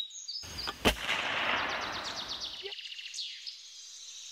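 Logo sting sound effect: a burst of noise, then a single sharp gunshot-like bang about a second in, its rushing tail fading out by about three seconds in. Birds chirp faintly in the background.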